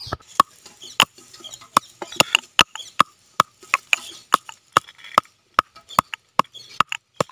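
Black peppercorns pounded with a stone pestle in a small stone mortar: a steady run of sharp stone-on-stone knocks, about two to three a second. The pepper is being crushed only coarsely, half-pounded.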